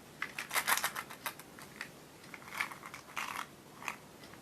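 Plastic packaging of a toy surprise egg being handled: quiet, irregular crinkles and light clicks.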